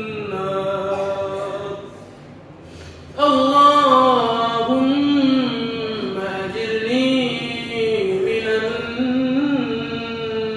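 A man's voice chanting an Arabic supplication in long, drawn-out melodic phrases, the pitch rising and falling. The voice breaks off for about a second near two seconds in, then comes back strongly.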